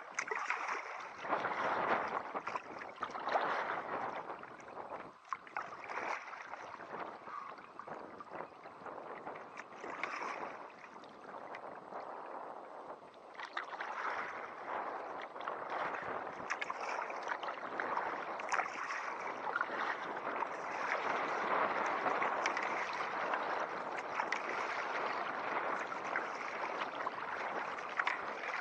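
Kayak on turbulent tidal water: water rushing, splashing and gurgling against the hull, with paddle splashes. The surges are uneven and loudest in the first few seconds, then settle into a steadier rush.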